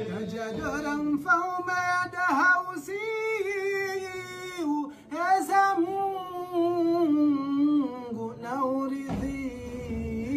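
A man's voice chanting unaccompanied in long, held, ornamented notes, in the manner of a Comorian Maoulid (mawlid) recitation in praise of the Prophet, with a brief break for breath a little before the middle.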